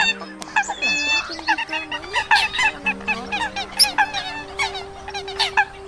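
A flock of Eurasian coots calling: many short, sharp honking calls overlapping, several a second, with a few louder single calls standing out. This is a lure recording used to draw in migrating coots.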